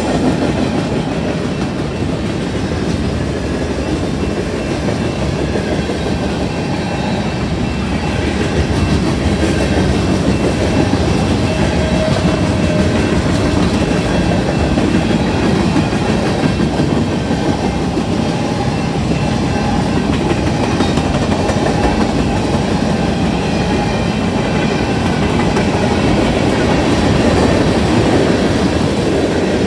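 Mixed freight train rolling steadily through a grade crossing: the even rumble and clatter of the cars' wheels on the rails as car after car passes close by.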